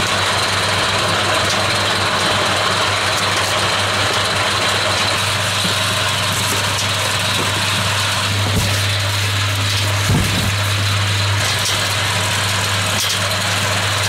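Vehicle engine idling with a steady low hum, with a few faint knocks and rustles as mushroom grow bags are pulled off wooden shelves.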